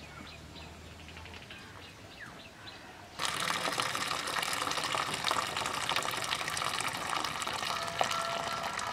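Starchy rice water pouring in a steady stream from the cooking pot into a steel bowl, splashing and frothing as the excess water is drained off the rice. The pour starts suddenly about three seconds in.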